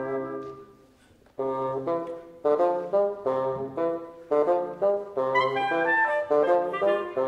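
Woodwind trio of flute, clarinet and bassoon playing a Venezuelan waltz. The music dies away to a pause of about a second near the start, then all three come back in together with rhythmic accompanying chords over a bassoon bass line, and a high melodic line enters about five seconds in.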